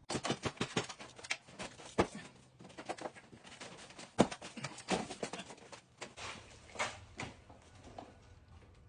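An irregular run of clicks and knocks: a quick clatter in the first second, then sharp single knocks about two and four seconds in, with scattered lighter clicks after.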